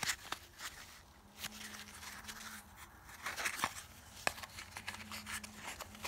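Small jewelry gift boxes and cufflinks being handled: a few sharp clicks and faint rustling of box and insert.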